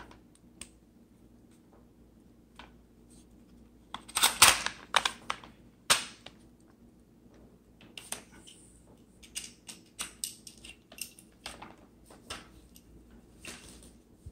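Metal parts of a DPMS Oracle AR-15 rifle clacking and clicking as the action is worked and taken apart to remove the charging handle. There is a cluster of sharp clacks about four seconds in, another about two seconds later, then lighter scattered clicks.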